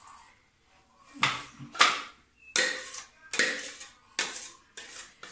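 A kitchen utensil scraping and knocking inside a plastic mixer beaker, scooping a thick whipped mixture out into a bowl of batter: a run of about seven short scrapes, starting about a second in.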